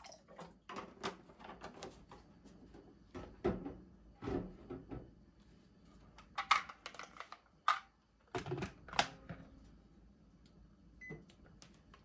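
Plastic clatter, clicks and knocks of a Zojirushi electric kettle and its power base being handled and set up, in several separate bursts. A short click is heard near the end as the kettle is switched on.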